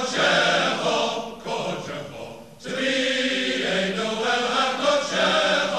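Male voice choir singing in parts; the sound thins and drops away briefly about two seconds in, then the full choir comes back in.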